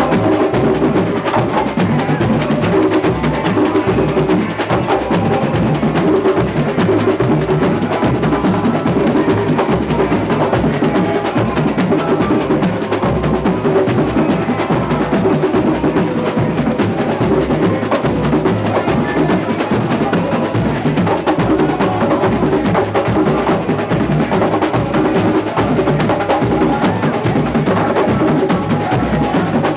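Samba school bateria playing a steady, loud samba rhythm: booming surdo bass drums under snare drums and sharp small percussion.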